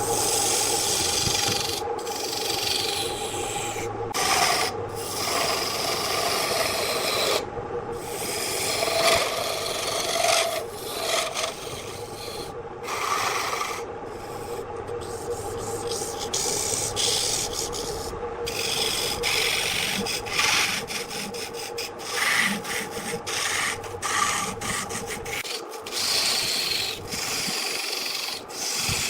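Wood lathe running with a steady hum while a tool scrapes and rubs against the spinning wood, broken by many brief gaps.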